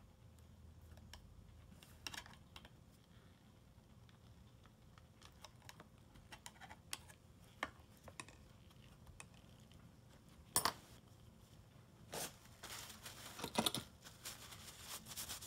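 Faint scattered clicks and scrapes of a small screwdriver and plastic parts being handled as the motor-mount screws of a percussion massage gun are taken out. A sharper click comes about ten and a half seconds in, and there is rustling near the end.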